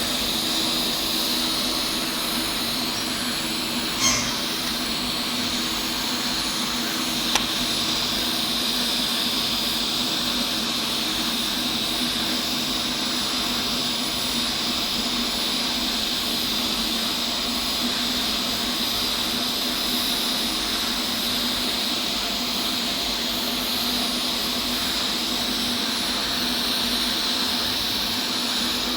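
Steady mechanical hum with a constant hiss, and two sharp clicks, about four and seven seconds in.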